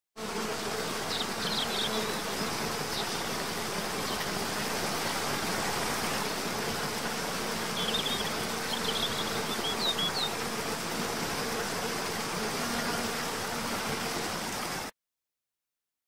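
Steady rushing water with a continuous insect buzz, and a few brief high bird chirps about a second in and again around eight to ten seconds in. The whole ambience cuts off abruptly shortly before the end.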